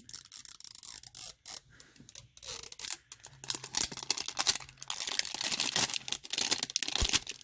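Small toy packaging being torn open and crinkled by hand: a run of crackles and rips, sparse at first and much denser and louder from about three and a half seconds in.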